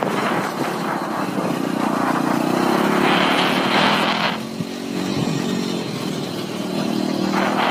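A vehicle's engine running while under way, its pitch shifting up and down as the speed changes, with a rushing hiss that drops away about halfway through.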